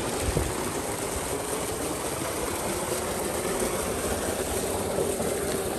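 A steady, unchanging mechanical running noise with a low rumble and a faint hum, like a small engine running.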